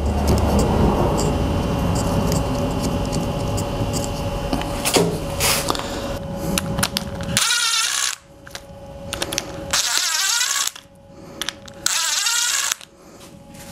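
Cordless impact driver running in three short bursts of under a second each, driving the small bolts on a fuel pump assembly. Before the bursts there are handling clicks over a steady background noise.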